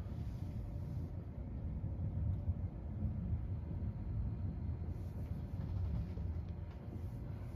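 Distant thunder from a supercell under nearly nonstop lightning, a low rolling rumble with slow swells.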